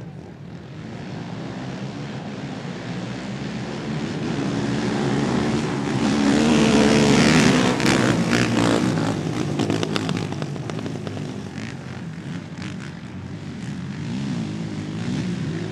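Racing quad ATV engines revving hard round a dirt track, swelling to their loudest about halfway through as the riders pass close, then easing off and building again near the end.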